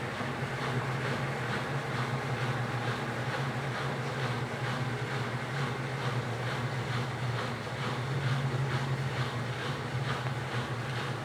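Washing machine running: a steady low motor hum with a faint, evenly repeating swish.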